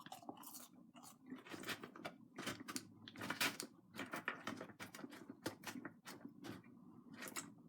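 A person chewing a mouthful of cheeseburger close to the microphone: irregular wet smacks and soft crunches, several a second.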